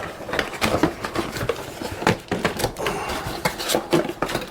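Packaging and parts being handled: irregular rustling with many small clicks and knocks as a power supply and tie wraps are taken out of the box.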